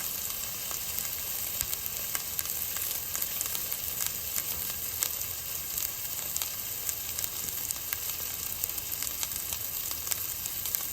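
80/20 ground beef frying in a pan: a steady sizzle with frequent small crackles of popping grease.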